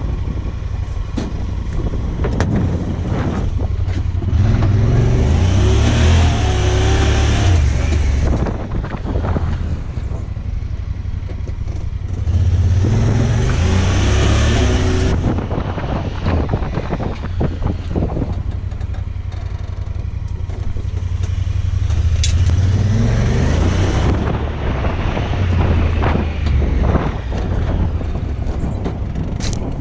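An engine running steadily, revving up three times for a few seconds each.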